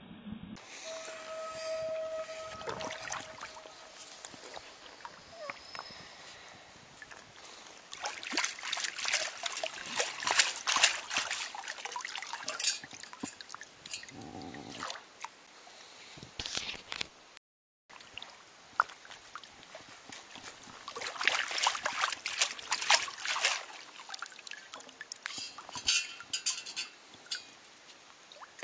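Water draining and splashing out of a perforated stainless-steel sand scoop as it is lifted and shaken, with sand and gravel crackling through the holes, in two long busy spells with quieter trickling between.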